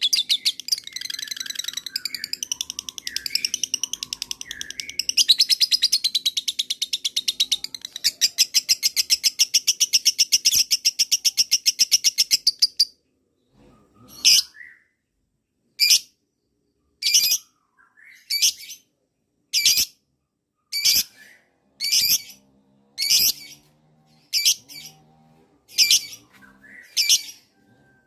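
Lovebird giving a long, very fast chattering trill, the 'ngekek panjang' that hobbyists prize, which cuts off suddenly about 13 seconds in. After that come single sharp, high calls, about one every 1.3 seconds.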